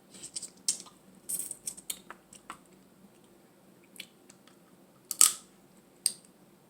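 Dungeness crab shell being cracked and picked apart by hand. A quick run of sharp clicks and cracks comes in the first two and a half seconds, then a few single cracks, the loudest about five seconds in.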